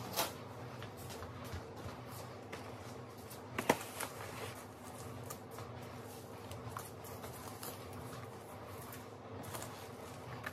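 Paper seed packets rustling and being handled, with light clicks and taps on a plastic seed-starting tray. Two sharper knocks stand out, one just after the start and a close pair a little before four seconds in, over a faint steady hum.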